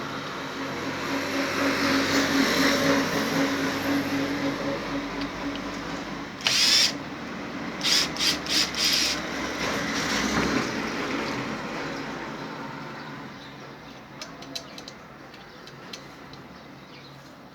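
Power drill/driver running screws into the washing-machine spin-dryer motor's mounting, in a few short trigger bursts about halfway through, over a steady hum that fades in the second half.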